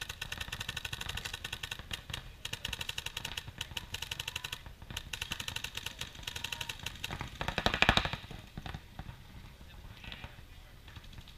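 Paintball markers firing fast strings of shots, a rapid popping rattle that comes and goes in bursts, with one louder, closer burst about eight seconds in.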